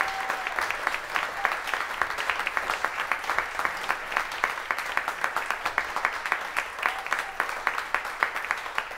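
Audience applauding, with individual claps standing out, easing off slowly toward the end.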